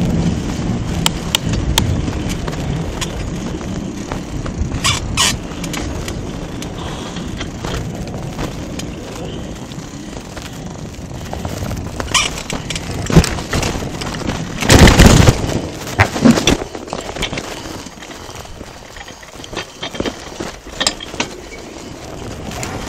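Bicycle ridden over park paths and a wooden footbridge, with wind rumbling on the camera microphone and frequent rattling clicks and knocks from bumps. A loud jolt comes about fifteen seconds in.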